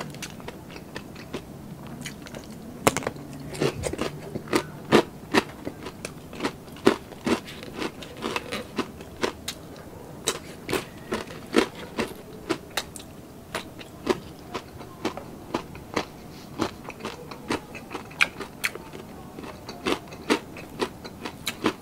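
Close-miked chewing of crispy deep-fried mussels and pork belly: many sharp, irregular crunches, one after another.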